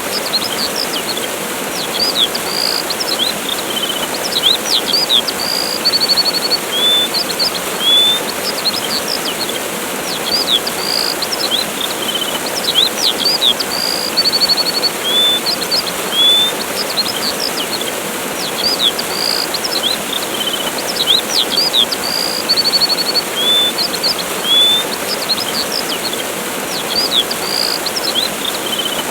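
Steady rushing of a waterfall with songbirds chirping over it: short rising whistles, quick slurred notes and brief rapid trills, in a pattern that repeats about every ten seconds.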